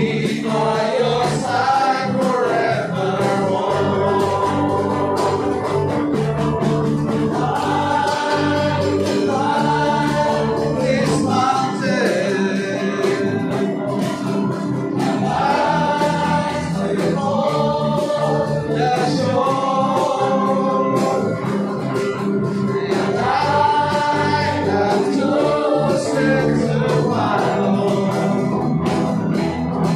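Live worship song: a man sings the lead over electric guitar, acoustic guitar, keyboard and percussion.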